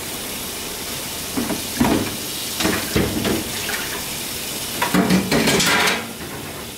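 Tap water running into a kitchen sink, with dishes and bowls clattering and splashing a few times.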